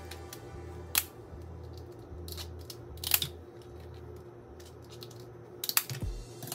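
Kitchen shears snipping through a raw lobster tail's shell: a few sharp snips a couple of seconds apart, with a quick pair near the end.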